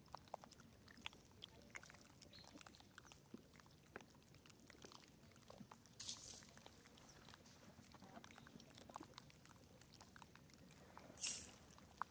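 Faint outdoor ambience with scattered small clicks and rustles, and a short high hissing burst about eleven seconds in.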